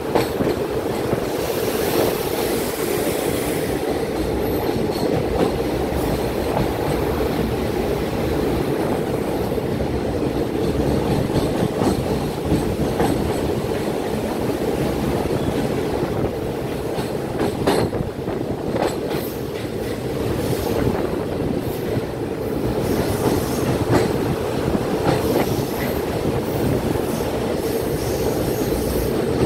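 Passenger train running steadily over the rails, heard from aboard: a continuous rumble of wheels and carriages with scattered knocks, one sharper knock about two-thirds of the way through.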